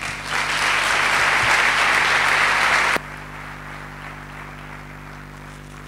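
Audience applauding, cutting off suddenly about three seconds in, after which a low steady hum remains.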